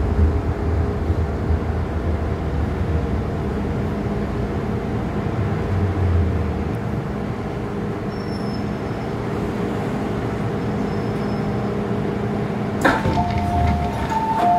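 MTR Island Line M-Train electric multiple unit running, a steady rumble with a low hum. Near the end a sharp click, then a two-note electronic tone.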